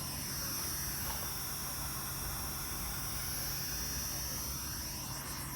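Steady hiss with a faint low hum and no music playing.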